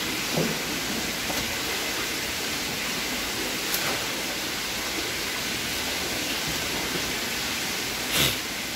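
A steady rushing hiss, with a few faint knocks and rustles as live spiny lobsters and shredded newspaper are handled in plastic crates and foam boxes. A short, louder rustle comes near the end.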